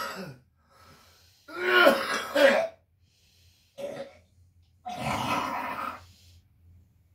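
A man coughing and clearing his throat in hard fits while hacking into a bucket: the tail of one fit at the start, then three more bouts, a short one in the middle and a longer one near the end.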